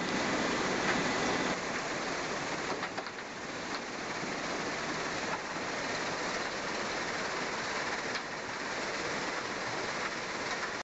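Construction-waste recycling plant running, its loaded conveyor belts carrying crushed soil and rubble: a steady, even mechanical noise with a few faint clicks.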